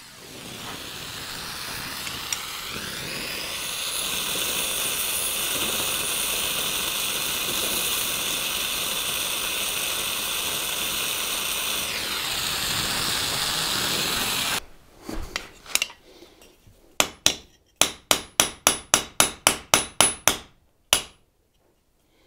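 Oxy-fuel torch flame hissing steadily as it heats the end of a steel hinge pin, cutting off after about fourteen seconds. A few seconds later a hammer strikes the hot pin end against the anvil in a quick run of light blows, about three or four a second, upsetting the pin end.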